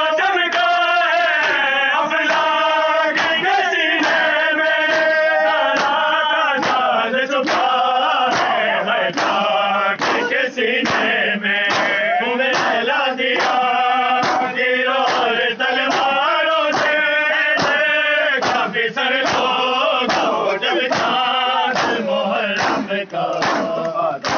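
Crowd of men chanting a Muharram nauha in unison, with steady sharp beats of matam (hands striking chests) about one and a half times a second.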